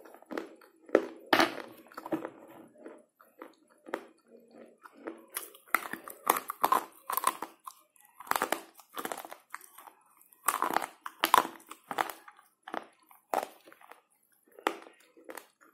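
A person biting off and chewing pieces of slate pencil: a run of irregular dry crunches, some sharp and loud, with short quiet gaps between bites.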